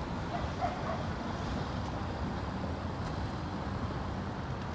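Steady city street ambience: a continuous hum of road traffic, with a few brief high-pitched calls about half a second in.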